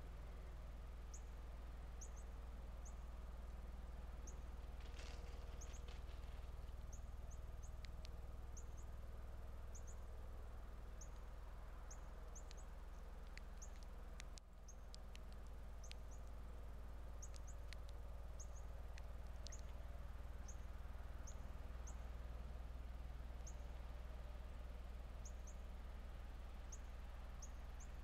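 Faint, high, short chip calls of small songbirds, scattered irregularly about one or two a second, over a steady low hum.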